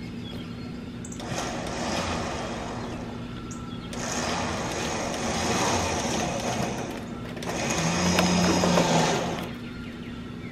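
Winch on a log-arch trailer running in three short pulls of two to three seconds each, dragging a big pine log up onto the trailer. A steady low hum runs underneath.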